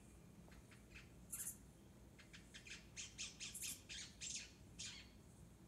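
Faint bird chirps and calls from a cat-entertainment DVD playing through the TV's speakers. A few very high short notes are followed, from about two seconds in, by a quick run of chirps.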